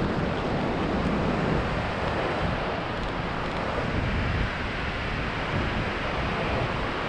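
A swollen mountain river rushing: a steady, unbroken noise of fast water, running high from heavy rain upstream.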